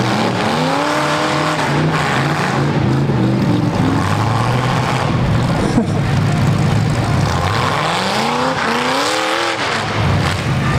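V8 engines of full-size demolition derby cars running hard, revving up and back down twice, about a second in and again near the end, over a steady engine din. A short sharp knock about six seconds in.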